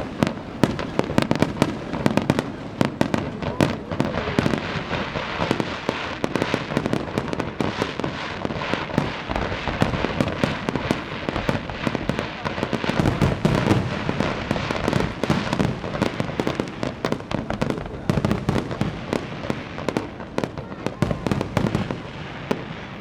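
Fireworks display: a dense, continuous run of bangs and crackles from many shells bursting in quick succession.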